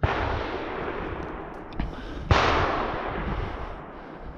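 Two gunshots about two and a half seconds apart, the first right at the start and the second louder, each followed by a long fading echo: finishing shots fired at a wounded buck.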